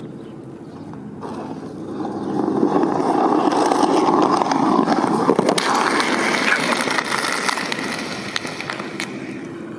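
Skateboard wheels rolling over pavement under a heavy rider sitting on the board. The sound builds over the first couple of seconds and fades toward the end.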